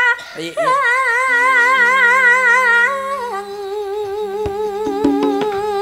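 A female singer holding long notes with a slow, wide vibrato in Javanese campursari style, over steady sustained accompaniment tones. A few sharp drum strikes come near the end.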